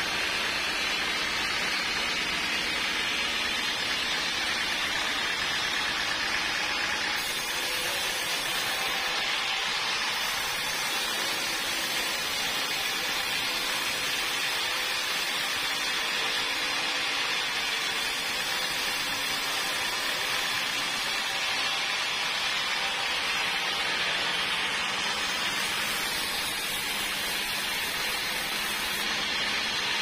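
Band sawmill blade sawing lengthwise through a bayur (wadang) log, a steady, even hiss.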